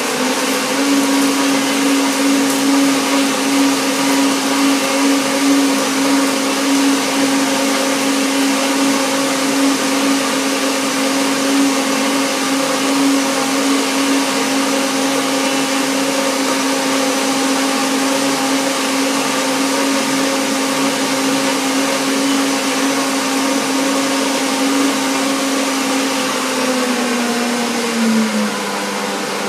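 Countertop blender running at high speed, blending a smoothie of arugula, blueberries, avocado, dates, cacao and water. The motor comes up to speed in the first second, holds a steady pitch, then winds down near the end as it is switched off.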